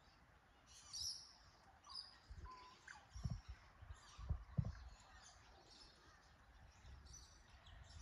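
Faint chirps and short calls of small wild Australian bush birds, scattered and overlapping. A few low thumps come in the middle.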